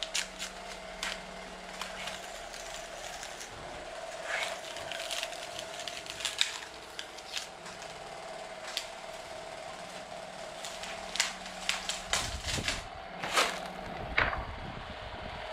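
Blue masking tape and plastic sheeting being peeled off the edges of a cured foam-core fiberglass panel on a glass layup table, with scattered crackles and clicks. About twelve seconds in, a low rumble and knocks come as the panel is lifted free of the glass. A steady machine hum runs underneath.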